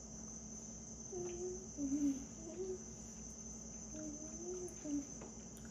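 A steady high-pitched cricket trill runs throughout, with a person humming softly in several short, wavering notes over the middle of the stretch.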